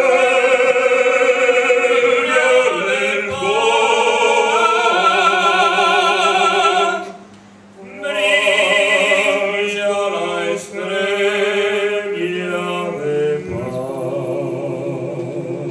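Two male voices, a classical tenor and a second singer, singing a Christmas carol duet with vibrato, holding long notes, with a brief pause for breath about seven seconds in.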